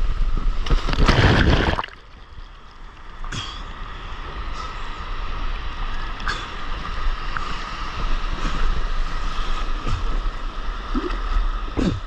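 Seawater splashing and washing over a surfboard and a board-mounted action camera as the surfer paddles through whitewater. A loud rush of breaking foam comes about a second in, then a softer, steady wash with small splashes.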